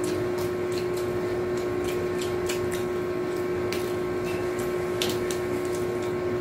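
A steady motor-like hum fills the room, with scattered light crackles and crunches as tortilla chips and lettuce leaves are handled by hand for nachos.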